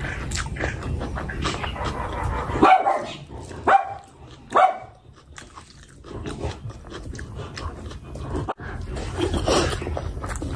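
Close-miked eating by hand: wet chewing and mouth smacks, with fingers squelching through curry and rice. Three sharper, louder smacks come in the middle, followed by a brief quieter stretch.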